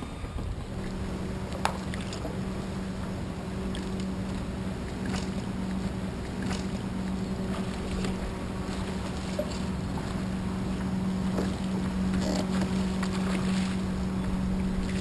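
Bass boat's electric trolling motor running with a steady hum, with a few light clicks and water noise around the hull.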